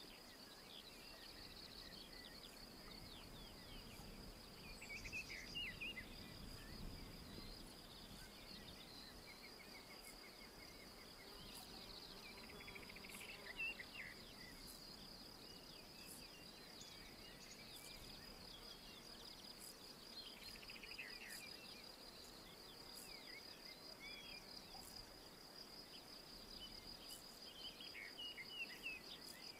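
Faint, continuous high-pitched insect trill, steady with a fine rapid pulse. Short bird chirps and calls come through now and then, several times.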